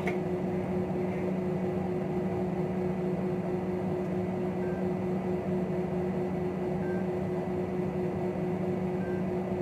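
Steady airliner cabin hum: an even rushing noise with a constant low drone.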